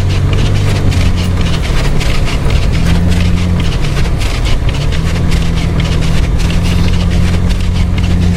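Car engine running steadily, its pitch shifting a little about three and five seconds in, with a crackly noise from the tyres on a snow-covered road, heard from inside the cabin.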